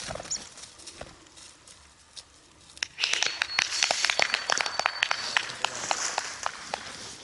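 Crunching, rustling steps through field cover, starting about three seconds in as a rapid run of sharp clicks, with a thin steady high tone heard faintly for about two seconds.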